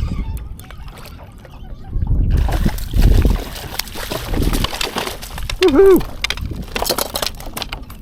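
Water splashing and sloshing beside a kayak as a hooked Atlantic bonito thrashes at the surface, starting about two seconds in. A shout of 'Woohoo!' comes near the end.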